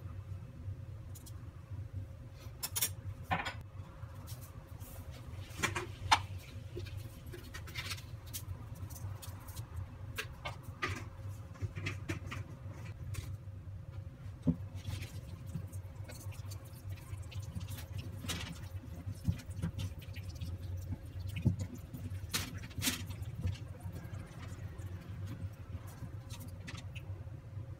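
Scattered small clicks, taps and crinkles of kitchen handling: a glass spice jar, a metal spoon and crumpled aluminium foil being worked while a lamb shank is seasoned. A steady low hum runs underneath.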